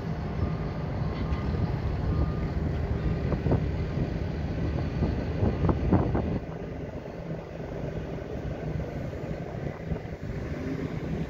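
Steady low hum of a docked cruise ship's machinery, heard from its open top deck, with wind buffeting the microphone. The gusts are loudest about five to six seconds in, then ease off.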